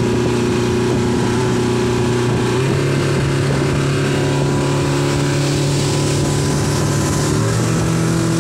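Mercury 115 hp outboard motor running steadily under way, pushing a speedboat, with the rush of water from the wake. The engine note steps up slightly about two and a half seconds in.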